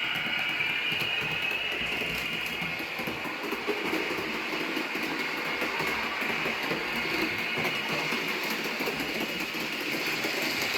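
Roco model Taurus electric locomotive running on its track with its onboard sound decoder playing locomotive sounds: a steady running noise, with a high tone in the first couple of seconds that fades out.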